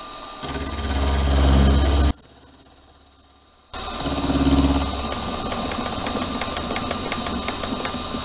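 Milling machine running, its end mill cutting a slot through a metal plate: a steady motor hum with a fast ticking of chips being cut. The sound starts about half a second in, cuts off abruptly for about a second and a half, then resumes.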